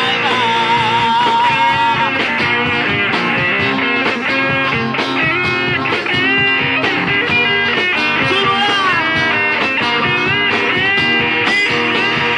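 Live band playing an instrumental break between the sung lines of a song: a lead melody with bending notes over guitar and a steady rhythm, with no singing.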